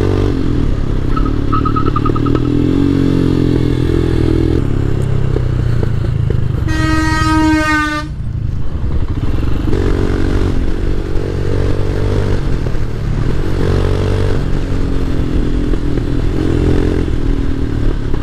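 Royal Enfield Himalayan's 411 cc single-cylinder engine running under way, its note rising and falling with the throttle. A vehicle horn sounds once for about a second, about seven seconds in.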